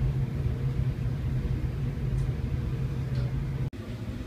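A steady low hum over a rumbling background noise. It breaks off abruptly near the end and carries on more quietly.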